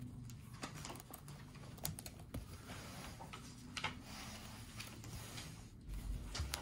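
Plastic pocket pages of a card binder being handled and turned: faint crinkling with scattered light clicks of the sleeves under the hands.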